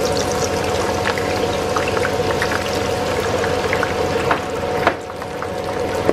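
Sliced onions frying in hot oil in a small pan: a steady, frothy sizzle full of small crackles and pops. A couple of sharper clicks come near the end, over a faint steady hum.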